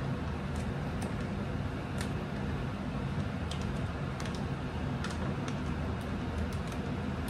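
Cooked rice being shaken out of a plastic pouch into a skillet of egg and sausage: scattered light clicks and pouch crinkles over a steady low hum.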